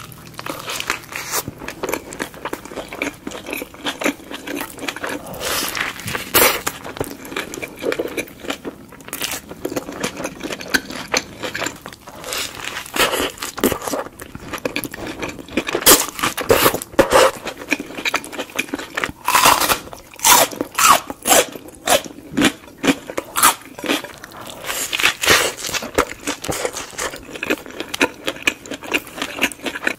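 Close-miked biting and chewing of a burger, with irregular crunches and mouth clicks that grow denser in the second half.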